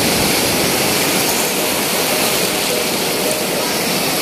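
Steady rushing noise of surf breaking and washing over a sandy beach, with wind buffeting the microphone.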